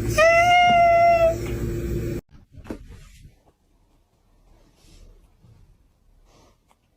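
A pet's single drawn-out call, about a second long and held at one pitch, over a steady hum that cuts off about two seconds in; after that only a few faint knocks.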